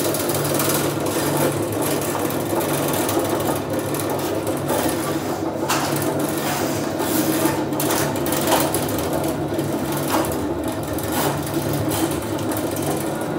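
Motorized drain-cleaning machine running steadily, its spinning spiral steel cable turning and rattling inside a floor drain to clear a clog, with a few sharp knocks along the way.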